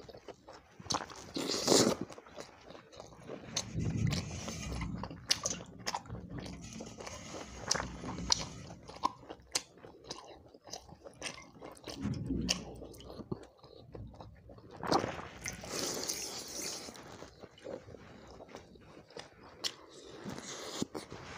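A person chewing and biting mouthfuls of fried chicken leg and water rice close to the microphone, with many wet clicks and smacks. The loudest bites come about two seconds in and again from about fifteen to seventeen seconds in.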